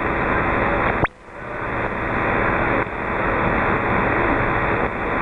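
Receiver static from an HF transceiver tuned to 27.520 MHz on the 11-metre band: a steady rush of band noise with no readable signal. About a second in, and again near the end, it drops out sharply and swells back up over about a second.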